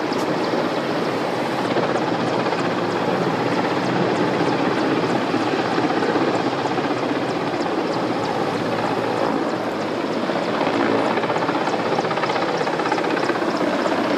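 Helicopter running nearby: a loud, steady rotor and engine noise that holds throughout.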